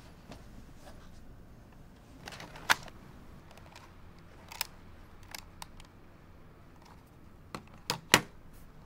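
Scattered short clicks and taps of small objects being handled and set down on a tabletop. The sharpest comes about three seconds in, and a quick cluster of three comes near the end, over a faint steady room hum.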